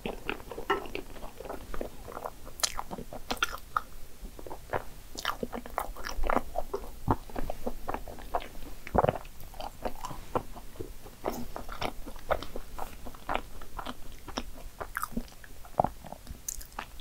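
Close-miked wet chewing of a cream puff filled with whipped cream and topped with chocolate syrup and chocolate chips, with many quick mouth clicks and smacks. Near the end comes a sip from a glass.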